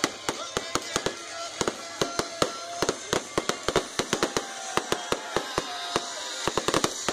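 A fireworks display going off: a rapid, irregular string of sharp bangs and cracks, several each second, with a brief dense flurry about six and a half seconds in.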